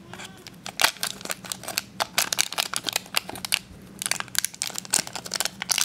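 Foil blind bag crinkling and crackling in irregular bursts as fingers squeeze and pull it open.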